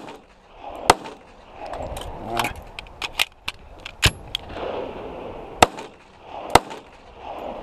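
Les Baer Extreme Tactical 1911 pistol firing .45 ACP rounds one at a time, several shots spaced roughly a second or more apart, with smaller sharp sounds between them.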